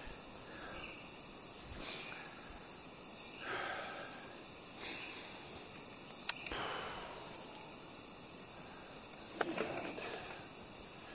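A man catching his breath during a rest from sawing, with breaths and sniffs every couple of seconds over a steady background hiss. A sharp click comes about six seconds in, and a quick run of clicks and knocks near the end as gear is handled.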